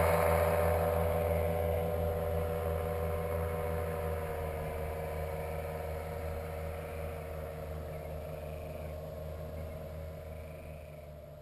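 Paramotor engine and propeller droning at a steady pitch, with a low, evenly pulsing beat. It grows steadily fainter as the powered paraglider flies away.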